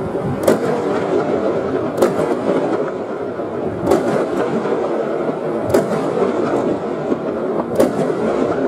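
Aerial firework shells bursting, slowed to half speed: a continuous low rumble of bangs, with five sharp cracks about two seconds apart.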